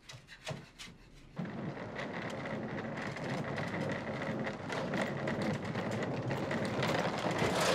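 Steady outdoor background noise, a dense rushing hum like distant traffic with a faint steady tone in it. It starts suddenly about a second and a half in and grows a little louder toward the end.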